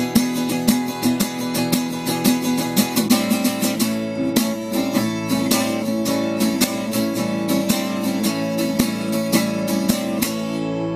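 Acoustic guitar strummed in a steady rhythm, the chord changing about three seconds in; the strumming stops near the end and the last chord rings on.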